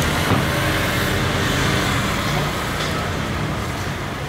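Road traffic: motor vehicle engines running, a steady low hum over a wide hiss.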